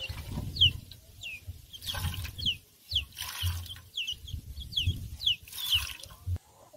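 Grated coconut being wrung by hand inside a woven palm-fibre kifumbu strainer over a metal basin: irregular wet rustling squeezes. Over it a bird peeps repeatedly in short, high, falling notes, about ten times.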